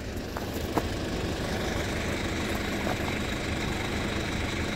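A vehicle engine idling: a steady low rumble with a few faint ticks.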